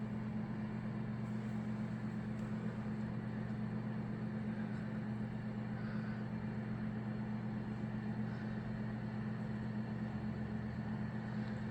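A steady low hum at one constant pitch, with a faint hiss over it.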